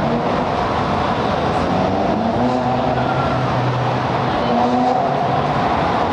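Steady motor vehicle noise: a continuous rush with a faint low engine hum underneath.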